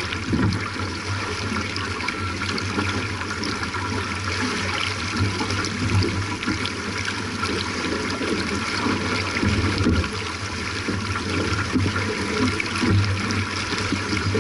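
Water rushing and splashing along the hull of a J/24 sailboat under way, a steady wash with a low rumble underneath.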